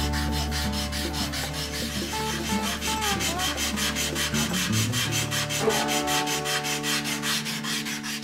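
Hand sanding with a small sanding block rubbed quickly back and forth along the edge of an acoustic guitar body, about seven even strokes a second, taking the binding and arm bevel veneer down flush with the body.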